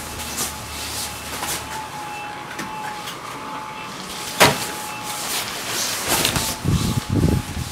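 Inflatable T-rex costume with its built-in blower fan running, a steady thin whine under the rustle of the costume's nylon fabric as the wearer moves. A sharp click about four and a half seconds in, and a few low muffled thumps near the end.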